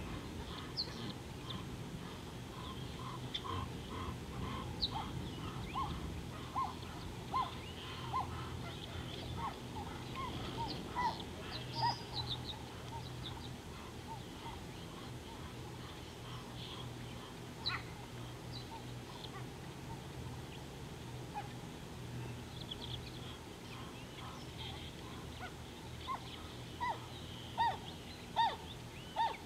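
Wild birds calling: runs of short, evenly spaced notes, a couple each second, with fainter higher chirps. A steady low hum lies underneath.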